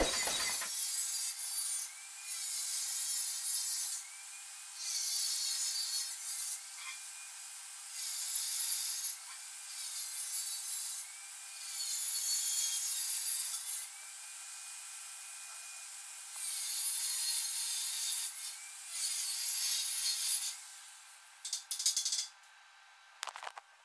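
Angle grinder with a cutting disc slicing through square steel tubing in a run of short cuts, each one to two seconds of harsh, high-pitched grinding with brief pauses between. Near the end, a few sharp taps of a hammer on the steel.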